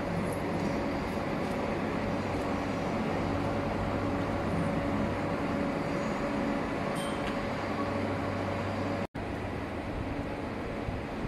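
A vehicle running with a steady mechanical hum over continuous noise. The sound drops out for an instant about nine seconds in.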